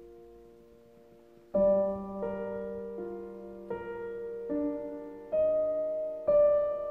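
Background piano music: slow, gentle notes struck about once a second, each left to ring and fade, starting faint and growing louder with a struck note about a second and a half in.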